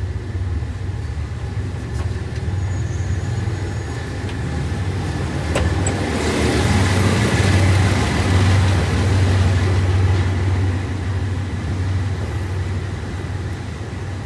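Diesel locomotive engine idling at a platform: a steady low hum that grows louder about six seconds in as it is passed closely, then eases again. A single sharp click just before it swells.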